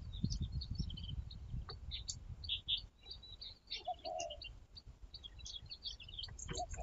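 Small birds chirping and twittering, many short high calls scattered throughout, over a low steady rumble.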